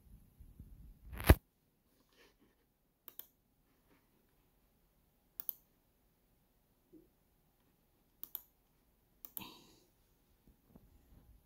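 About five sharp, separate clicks from operating a computer, spaced one to three seconds apart. The first, about a second in, is the loudest and has a low thump to it.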